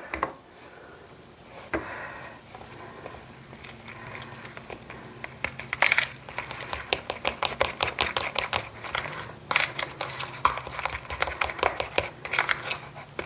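A fork beating a thick egg-and-flour dumpling batter in a small bowl: a quick run of light clicks and scrapes as it strikes the bowl, busier from about halfway through.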